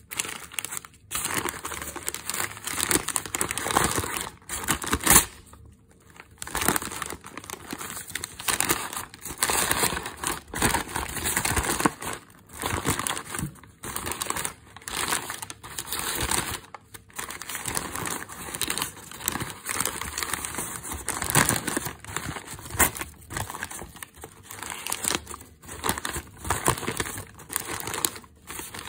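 Newspaper crinkling and rustling as it is unwrapped by hand, in irregular bursts with a few short pauses.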